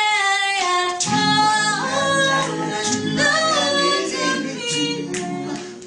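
A cappella voices singing in harmony, a high female voice over lower voices, holding long notes with no instruments.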